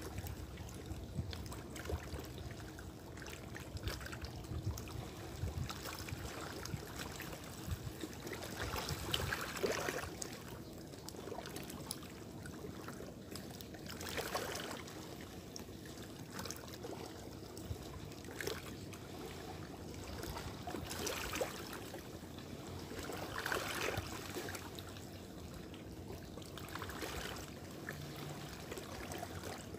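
Small sea waves lapping and washing against shoreline rocks, swelling in gentle surges every few seconds.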